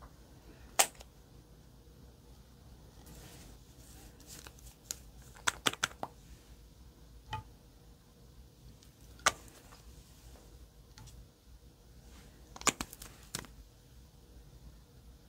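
Scattered sharp clicks and taps from small objects being handled, about a dozen spread irregularly with two quick clusters, over a faint room hiss.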